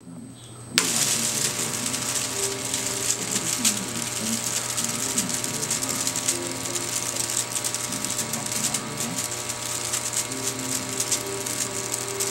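Storz & Bickel Volcano vaporizer's air pump switching on about a second in and running steadily while it fills the balloon bag: a constant hum under a fast, dense crackle.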